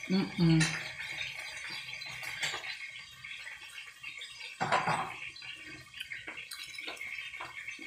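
Close-up eating sounds: fingers picking food off a plate, then wet chewing and lip smacks, with many small clicks and a louder crackle about two-thirds of the way through. A short hum of voice opens it.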